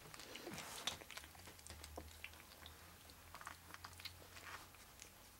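Three-week-old Scottish terrier puppies suckling at their mother: faint, irregular wet smacking and clicking.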